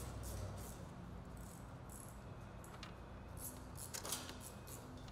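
Faint background music with a steady shaker or hi-hat beat about three times a second, and a single sharp click about four seconds in.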